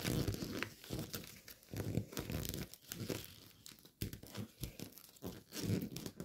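Gold foil origami paper crinkling and crackling in irregular short rustles as a flap is folded over and creased by hand.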